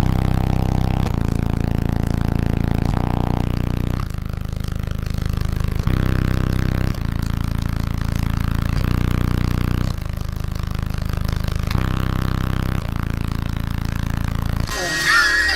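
Deep bass music played at high volume through a car audio system of nine 15-inch Sundown NSV4 subwoofers: a run of long, low bass notes that changes pitch every one to two seconds, with no vocals.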